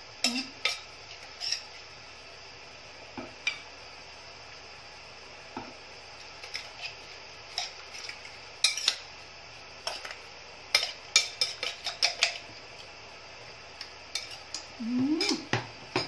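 A metal spoon clinking and scraping against a glass mixing bowl while a salad is tossed. The clinks come irregularly, sparse at first and in quick clusters from about halfway through.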